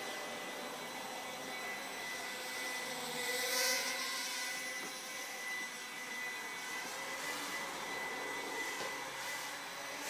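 Walkera QR Ladybird micro quadcopter in flight: its four small coreless motors and propellers whirring steadily with a thin high whine, swelling briefly about three and a half seconds in.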